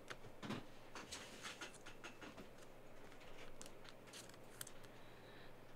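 Faint clicks and light scratches of trading cards and a foil card pack being handled on a table.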